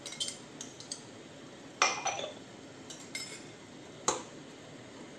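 Metal slotted spatula clinking against the inside of a metal pressure cooker while stirring soup, a string of sharp clinks with short ringing. The loudest knocks come about two seconds in and about four seconds in.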